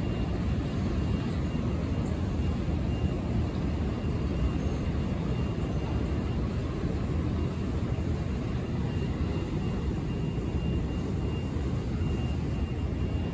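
Steady low rumble of a New York City subway train running, with a faint high whine coming and going.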